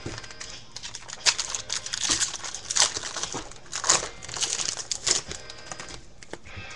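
Foil wrappers of 2013 Bowman baseball card packs crinkling and tearing as the packs are handled and torn open by hand: a string of short crackles from about a second in, loudest around the middle, dying away near the end.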